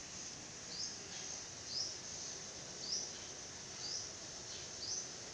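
A short, high chirp repeated evenly about once a second from a small animal, over a faint steady hiss.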